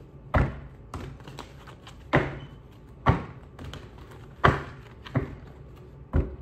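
Tarot cards being shuffled by hand, the deck's cards slapping together in a series of sharp, irregular taps, roughly one a second.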